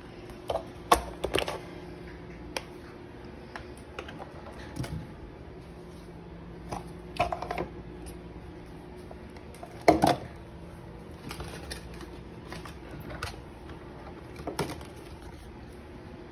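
Scattered clicks and knocks of things being handled on a kitchen counter, the loudest about ten seconds in, over a steady low hum from a running appliance.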